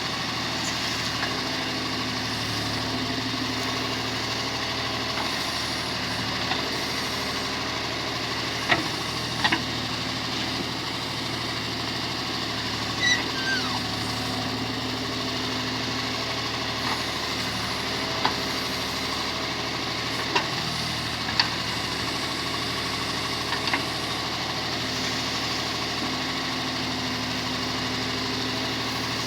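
John Deere 5310 tractor's three-cylinder diesel engine running steadily while working a backhoe, with a few sharp clanks scattered through, the loudest about nine seconds in.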